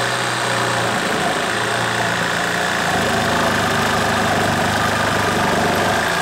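Hyper Tough cordless reciprocating saw with a wood blade cutting through a 2x4, running steadily under load. The motor's pitch shifts slightly about one and three seconds in as the blade works through the wood.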